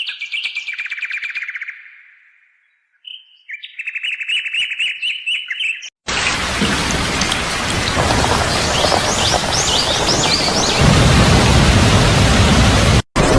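A songbird sings two fast trilled phrases, with a pause between them. About six seconds in, the sound cuts to a steady rush of rain with faint bird chirps over it. The rush grows louder and deeper near the end, with a brief break just before the end.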